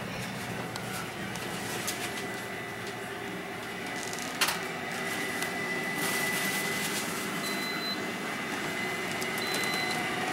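Pampered Chef Deluxe Air Fryer running: its convection fan hums steadily with a thin high whine over it. A single sharp click about four and a half seconds in.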